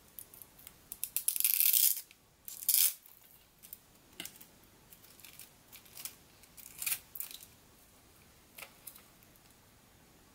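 Clicks, scrapes and rustles of hands handling an RC car's plastic chassis, wiring and battery pack as the battery is unplugged and lifted out. A loud scratchy rasp lasting under a second comes about a second in, and a shorter one a little later.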